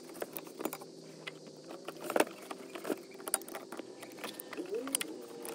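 Hose clamp pliers clicking and clinking against a spring hose clamp and metal coolant fittings while a coolant hose elbow is fitted. A scattering of sharp taps, the loudest about two seconds in.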